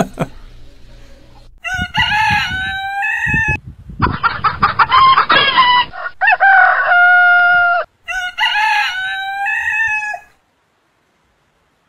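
A rooster crowing about four times, each crow about two seconds long, rising and then held on a steady pitch at the end.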